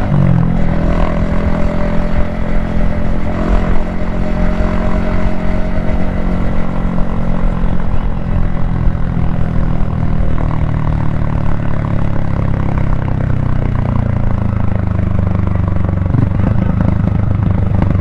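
Yamaha XSR155's single-cylinder engine running under way, heard from the rider's helmet. The engine note dips right at the start, then falls slowly through the second half as the bike slows toward an intersection.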